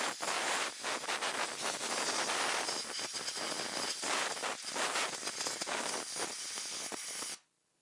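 Compressed-air blow gun hissing as it blasts dissolved gunk and carburetor cleaner out of a small-engine carburetor, with a few brief breaks in the blast; it cuts off suddenly near the end.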